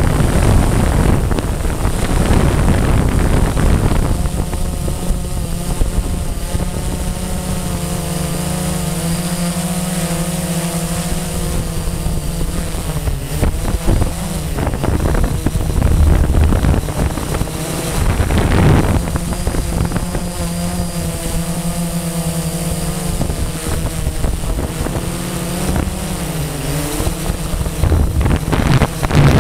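Blade 350 QX quadcopter's electric motors and propellers whining in flight, several pitches drifting up and down as the motors adjust. Gusts of wind buffet the onboard camera's microphone near the start, about two-thirds of the way through, and again near the end.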